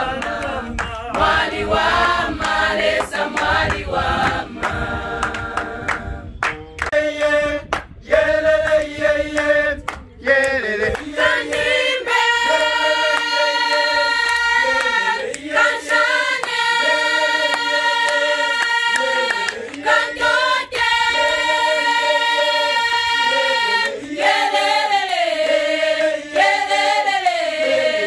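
A women's choir singing a cappella in harmony. The song moves into long held chords about halfway through, and near the end the voices slide together between notes.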